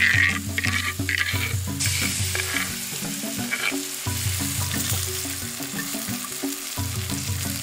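Hot oil sizzling in an aluminium pan as ground gongura (sorrel leaf) paste is added to fried onions and chillies and stirred with a spoon. Background music with a low melody plays underneath.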